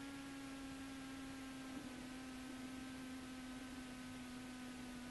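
Faint steady hum with several overtones in a Cessna 172's headset intercom recording, its pitch sinking very slightly, over a low hiss, while the engine idles.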